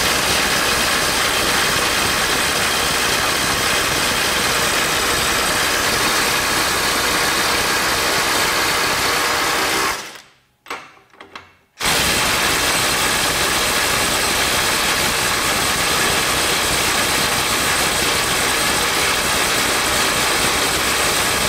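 Ryobi One+ HP brushless impact driver on a 2 Ah battery hammering steadily for about ten seconds to back off a nut torqued to 300 foot-pounds. It stops, then hammers again for about ten seconds against a nut at 350 foot-pounds, which it does not break loose.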